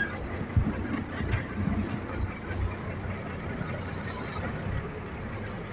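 Truck engine and road rumble heard from inside the cab while driving: a steady low rumble with uneven low thumps from the cab and chassis.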